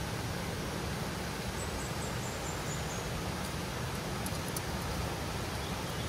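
Steady rushing of a mountain river flowing over rocks. A short run of faint high chirps comes about two seconds in.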